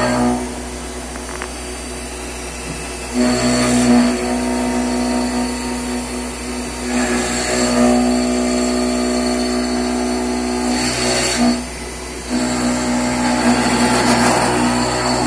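CNC machining center's spindle running with an end mill cutting a wooden casting pattern: a steady whine under the rasp of the cut, which grows louder several times as the tool bites into the wood, with a brief dip about twelve seconds in.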